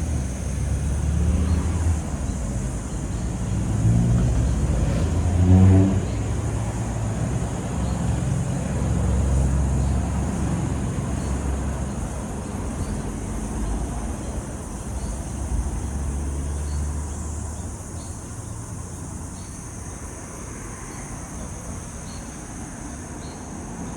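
Motor vehicles driving past, the loudest rising in pitch and swelling about five to six seconds in, then fading away. Under it is a steady high-pitched drone.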